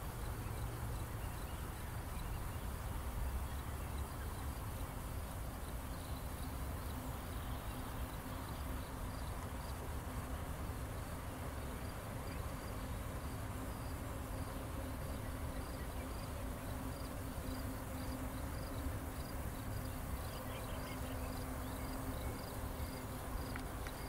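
Steady low rumble and hiss of ambient sound, with a faint high-pitched chirp repeating about one and a half times a second from about eight seconds in.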